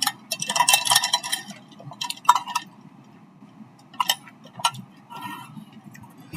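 Light clinks and clicks of tableware being handled: a quick flurry in the first second, then a few scattered single clinks.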